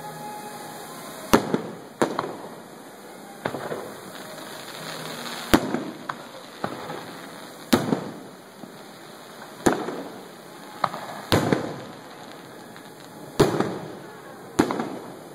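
Aerial fireworks shells bursting: about ten sharp bangs, one to two seconds apart, each trailing off in an echo.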